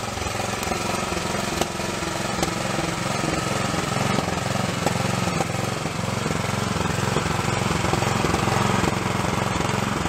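Two-stage snowblower's small single-cylinder engine running steadily with a rapid chugging beat, getting a little louder near the end.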